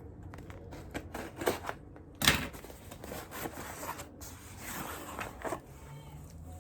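Scissors snipping and packaging rustling as a package is cut open by hand, with a string of small clicks and one louder knock about two seconds in.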